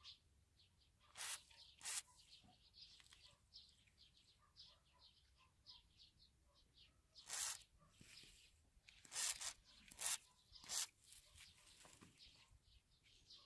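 Faint, frequent high chirping of birds in the background, broken by about six brief bursts of hiss: two around a second in, then a cluster from about seven to eleven seconds in.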